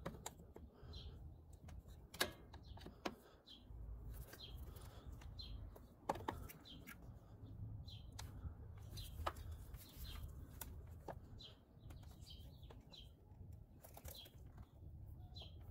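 Plastic retaining clips on a 2010 Ford F-150's engine-bay fuse box lower cover clicking as they are unhooked one after another, sharp clicks at uneven intervals. Small birds chirp over and over in the background.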